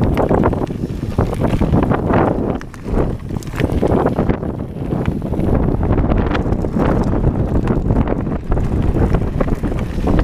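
Loud wind noise buffeting a GoPro Hero3+ Black's microphone as a mountain bike rides a gravel singletrack. Through it runs the crunch and clatter of the tyres and bike over stones, a stream of short knocks.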